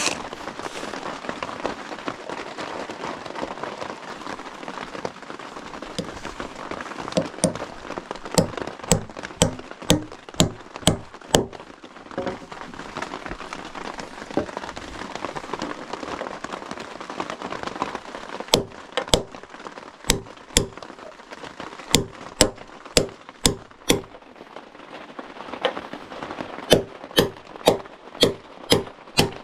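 Hammer striking wood in three runs of sharp blows about two a second, driving a wooden peg into a drilled log.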